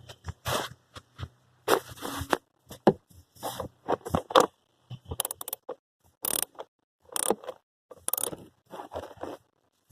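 Irregular scraping, rustling and clicking of plastic trim and hand tools being handled under a car's dashboard.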